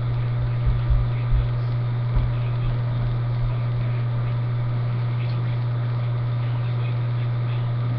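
A steady low hum, with a few dull low thumps in the first two or three seconds.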